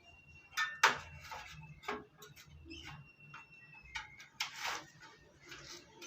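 Irregular clicks and knocks of a motherboard being fitted into a metal computer case, the loudest about a second in and a longer one about four and a half seconds in.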